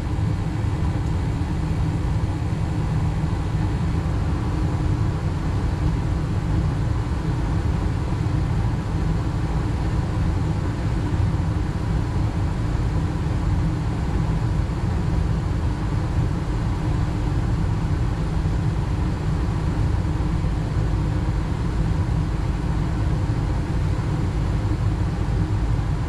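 Induced-draft gas furnace with NOx rods running steadily in its first minute of firing: the inducer fan and burner flames give an even, mostly low-pitched noise.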